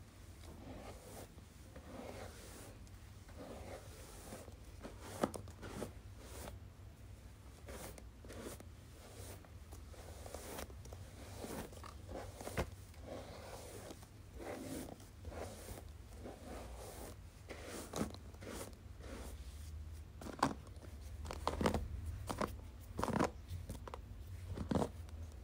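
Hairbrush strokes: an irregular run of short scratchy brushing sounds with a few sharper clicks, which come more often near the end.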